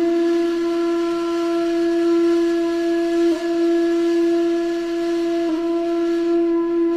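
A single musical note held at one steady pitch, wavering slightly twice, about three and five and a half seconds in.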